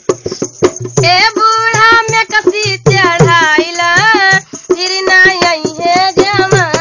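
A woman singing a Bhojpuri song in long, wavering held notes over quick drum beats. The drumming is heard alone at first; the voice enters about a second in and pauses briefly near the middle.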